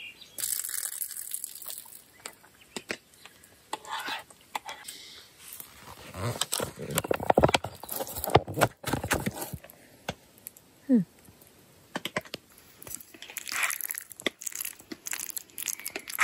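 Foil-lined Backpacker's Pantry freeze-dried meal pouch crinkling and tearing as it is handled and opened, in several bouts of crackling, the longest a few seconds past the middle. A short falling voice sound about two thirds of the way in.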